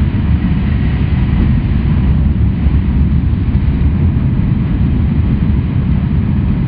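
Cabin noise inside an E6 series Super Komachi shinkansen running at speed: a steady low rumble with a fainter hiss above it.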